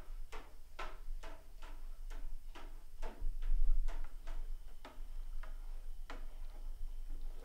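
A long spoon knocks against the side of an aluminium brew pot while stirring, in a steady rhythm of about two to three knocks a second. A low rumble of handling comes about three seconds in.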